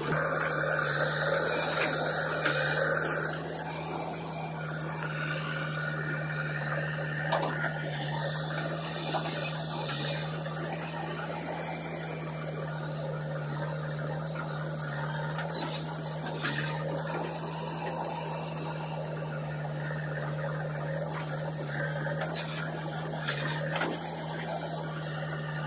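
Diesel engines of a JCB backhoe loader and a John Deere tractor running at a steady speed: a constant low hum under rough mechanical noise, a little louder for the first three seconds, with a few faint knocks.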